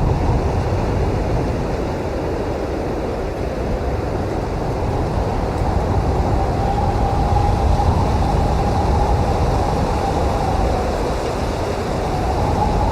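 Blizzard wind blowing in strong, steady gusts with a deep rumble that swells and eases. Through the middle, a faint whistling tone rises and fades.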